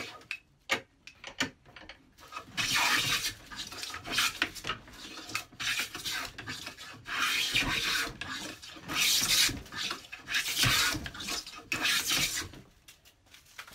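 A Record No. 5 iron bench plane being pushed along a wooden board: about six separate hissing strokes of the blade shaving the wood, with a few short clicks between them as the plane is set back for the next pass. The blade has been backed out to take very thin shavings.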